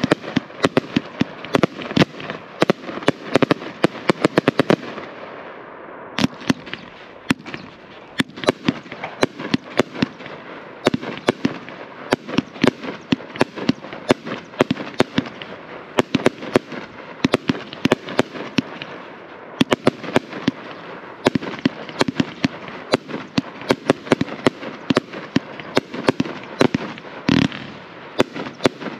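Consumer firework cake firing a long continuous barrage: sharp shots and bursting breaks come several a second without a break.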